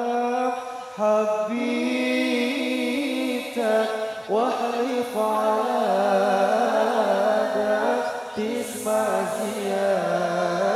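Group of male voices singing a sholawat (Islamic devotional song) together into microphones, in long held notes that bend and ornament the melody.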